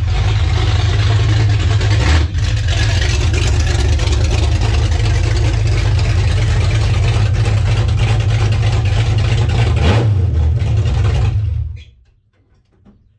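1970 Dodge Dart's 408 cubic-inch stroker V8 running loud through open Doug's headers with no mufflers fitted, then cutting off near the end.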